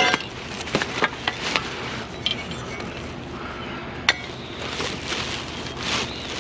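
Hard objects being handled while rummaging through a scrap pile: a few scattered clinks and knocks, mostly in the first couple of seconds, with one sharp clink about four seconds in.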